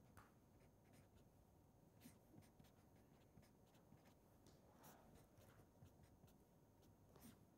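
Faint scratching and light tapping of a felt-tip pen writing on paper, in short strokes with small pauses between them.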